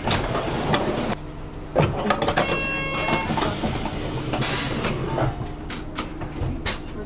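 City bus engine idling at a stop, with a short electronic chime about two and a half seconds in and a sharp burst of compressed-air hiss from the bus's air system a little after four seconds, then a few clicks near the end.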